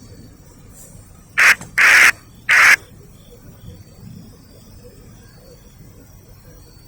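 A bird calling three times in quick succession, the calls about half a second apart and all of similar length.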